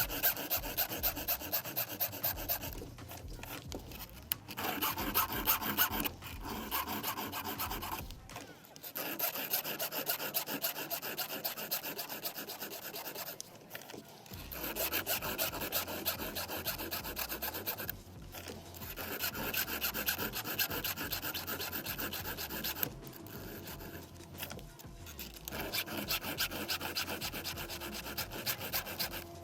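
Round file being stroked across the cutters of a chainsaw chain during hand sharpening: runs of repeated scraping file strokes, with short pauses every few seconds as the file moves on to the next cutter.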